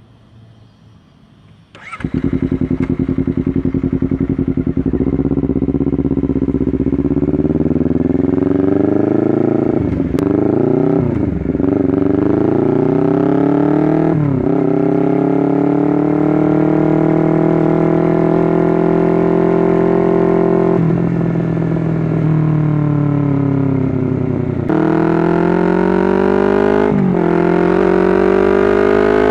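Honda CBR250RR motorcycle engine that comes in suddenly about two seconds in, then revs up through the gears, with short sharp dips in pitch at the shifts. It holds a long steady pull in the middle, eases off, then accelerates again with more shifts near the end.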